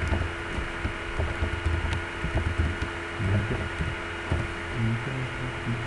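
Steady electrical hum with irregular low thumps and a few faint clicks.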